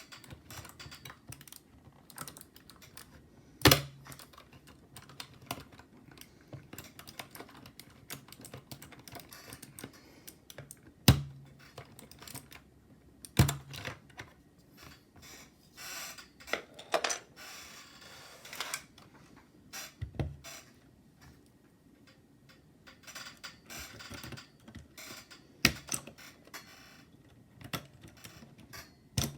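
Typing on a mechanical keyboard: irregular key clicks throughout, with a handful of much louder, deeper clacks scattered among them.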